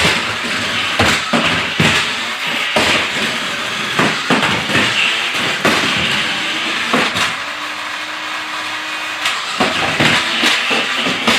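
Toy remote-control car's small electric motor whirring as it drives, with repeated plastic knocks and clatters as it bumps and tumbles over the floor.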